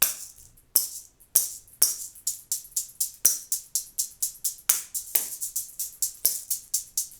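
A one-shot finger shaker played in short, crisp strokes: a few single shakes, then a quicker rhythm of about five strokes a second with some strokes accented louder than the rest. It sounds only in one direction, without the back-and-forth shuffle of an ordinary shaker.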